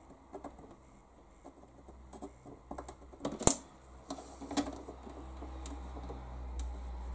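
Small clicks and taps of a pen and fingers on a hard plastic boat canopy, with one sharp click about three and a half seconds in.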